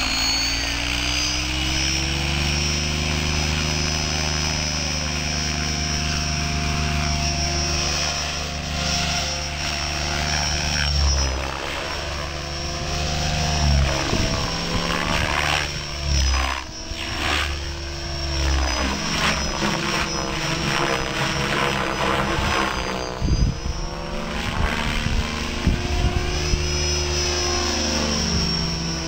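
Mikado Logo 500 electric RC helicopter in flight: a steady motor whine with the rotor's beat, rising in pitch over the first couple of seconds. From about eleven seconds in to around twenty-four seconds, the sound turns uneven, swooshing and dipping in pitch as the helicopter is thrown through aerobatic manoeuvres.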